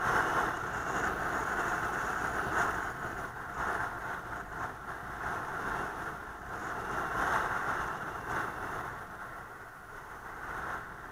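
Steady wind and road noise from a vehicle moving along a road, easing off slightly near the end.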